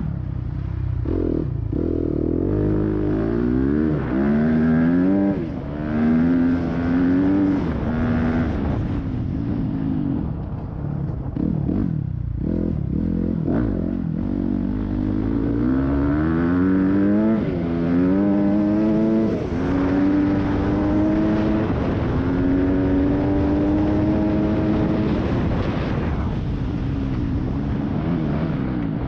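Yamaha YZ250F's 250 cc four-stroke single-cylinder dirt-bike engine under hard riding, its revs climbing and dropping back again and again as the gears are shifted, then held fairly steady for several seconds in the second half.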